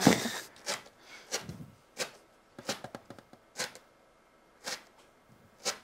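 Round metal pastry cutter pressed and twisted into a set, crunchy chocolate croustillant base on a silicone mat. It gives short crisp crunches, about one a second.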